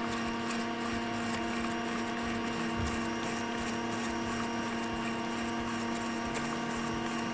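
Bosch stand mixer running at a steady speed, its motor giving an even hum while the whisk beats eggs, brown sugar and honey in a stainless steel bowl until the mixture turns fluffy.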